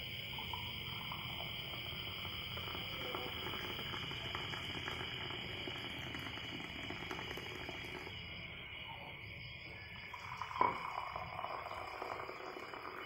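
Hot red-ginger decoction being poured from the pot into a glass, a low, even liquid sound, over a steady high chirring of crickets or other insects. A single sharp knock about ten and a half seconds in.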